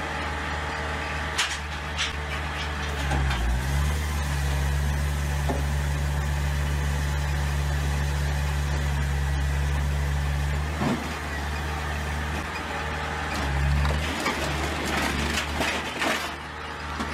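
Firewood processor running: a steady low drone from its drive, heavier through the middle and easing near the end, with scattered short cracks and knocks of wood being split on the star-shaped wedge.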